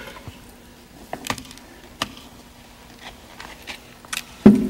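Rocks being set one at a time into a clear plastic bowl: scattered light clicks and knocks, then a heavier thump near the end.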